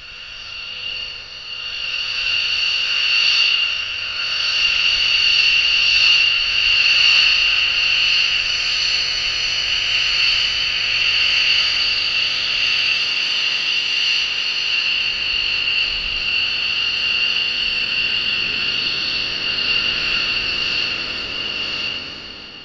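Jet engines of a Lockheed F-117 Nighthawk, two General Electric F404 turbofans, whining steadily at taxi power. The high-pitched whine swells over the first two seconds, then holds.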